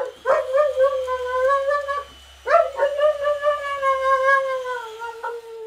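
A dog howling: two long, wavering howls, the second one longer and sagging in pitch near its end.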